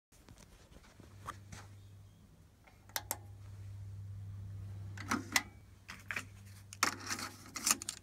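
Controls of a Yamaha KX-380 cassette deck clicking, then a run of clicks and rattles near the end as the cassette door is opened. A low steady hum comes on about a second in.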